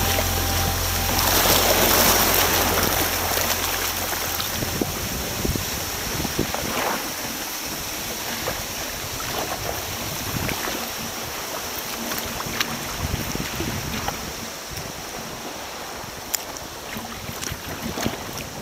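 Sea water washing and splashing around a sea kayak and over the rocks beside it, loudest in a surge in the first few seconds, then settling to a quieter lapping with small splashes. Wind buffets the microphone at times.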